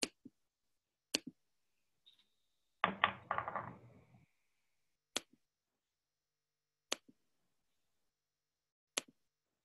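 Sharp, isolated clicks about every one to two seconds over dead-silent online-meeting audio, with a short rustling burst about three seconds in.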